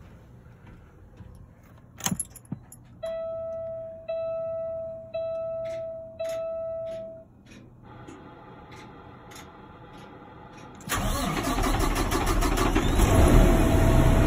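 Ignition key clicks on and the truck's dash sounds four warning beeps about a second apart, followed by a faint hum. About eleven seconds in, the Paccar M13 diesel cranks and starts, running loudly, with a steady warning tone sounding again near the end.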